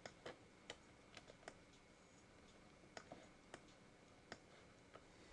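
Faint computer mouse clicks, about ten short, sharp clicks at uneven intervals, as the cursor works the zoom-selection box.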